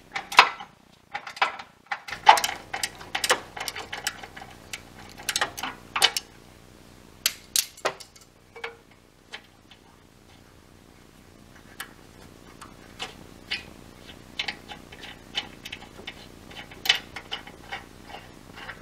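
Irregular metal clicks and clinks of a ratchet and 15mm socket working a tow hook bolt loose, coming thick and fast at first and thinning out after about eight seconds.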